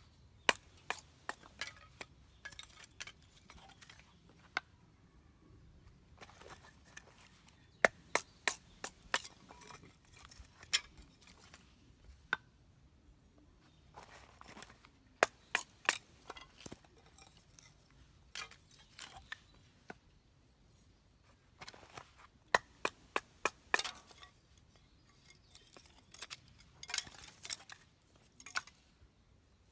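Sharp wooden knocks in quick runs of several strikes, with pauses between runs: a wooden baton striking the spine of a knife to split firewood (batoning).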